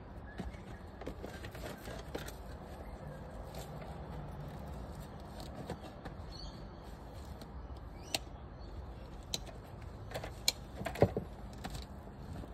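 Handling noise from a bucket organizer being worked into a plastic bucket: scattered light clicks and taps, with a few sharper knocks toward the end, over a faint steady background hum.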